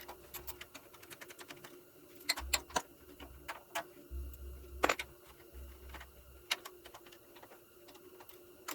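Irregular clicks and taps of small metal parts and hand tools being handled while working on a small generator, with a few brief dull thuds and a faint steady hum underneath.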